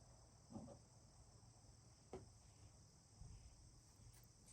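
Near silence: a faint steady high-pitched hiss, with a few soft knocks and clicks from fabric and tape being handled on a table.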